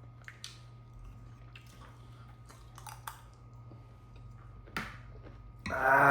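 Close-up chewing of crisp street snacks, with a few sharp crunches and mouth clicks. A short voiced sound comes near the end.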